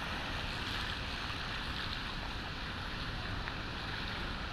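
Steady outdoor ambience of a flooded street: a constant hiss of traffic and water, with a faint steady high hum underneath.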